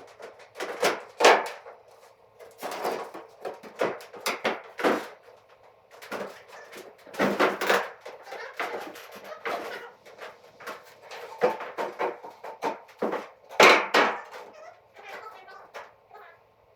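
Irregular knocks, clunks and clattering of hard objects being handled and set down, with the loudest knocks about a second in and again near the end.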